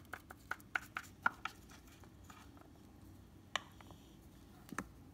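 Light taps and clicks from small objects being handled: a quick run of about eight taps in the first second and a half, then a single tap and, near the end, a double tap.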